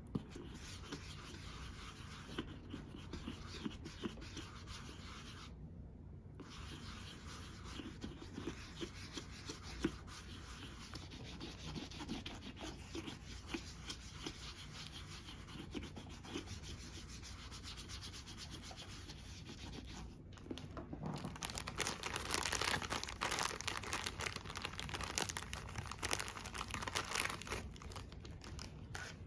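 Makeup being rubbed and brushed onto a mannequin's face: continuous soft rubbing and scratching, with two short breaks, growing louder and brighter for several seconds near the end.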